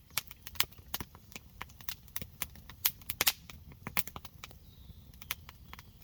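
Irregular sharp clicks and pops, several a second and uneven in strength, over a low rumble.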